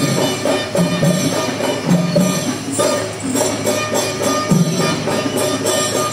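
Temple procession percussion: drums played with a dense jangling of hand cymbals in a fast, steady beat.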